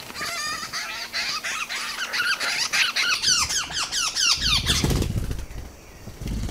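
Birds of paradise squabbling: a rapid run of harsh, squeaky calls, each note falling in pitch, lasting about four seconds. Then come a few low flutters and thuds as two birds grapple.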